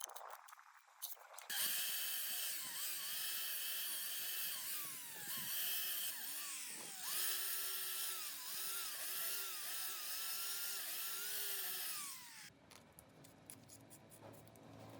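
Handheld electric power tool whirring for about ten seconds, starting about a second and a half in and stopping near the end. Its pitch repeatedly dips and recovers as it is pressed into the work. Light clicks and taps come before it starts and after it stops.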